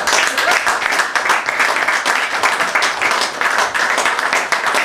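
Audience applauding after a poetry reading: dense, steady clapping from a small room of listeners.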